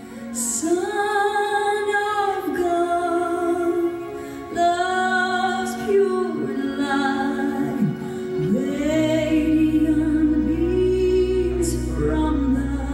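A female voice singing a slow song of long held notes over instrumental accompaniment; a deep bass note comes in about two-thirds of the way through.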